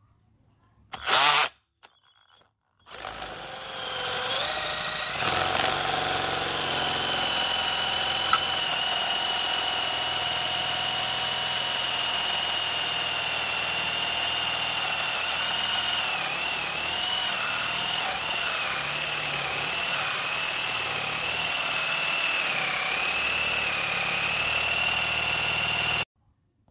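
Electric drill driving a hole saw into a block of wood. A brief blip of the trigger comes first, then the motor winds up and runs steadily with a high whine that wavers as the saw bites. It cuts off suddenly near the end.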